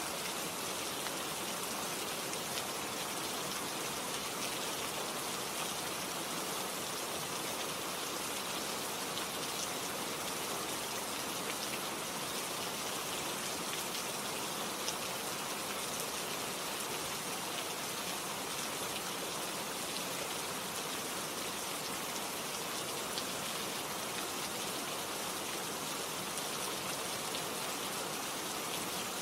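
Steady rain, an even hiss of falling drops that holds without change.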